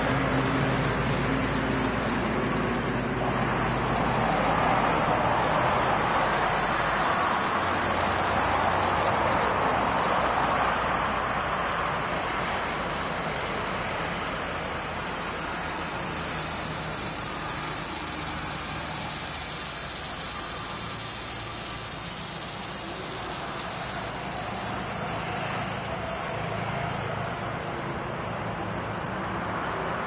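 Male cicada calling: a loud, continuous, high-pitched buzzing song made by its vibrating abdomen. It dips slightly about halfway through and eases off near the end.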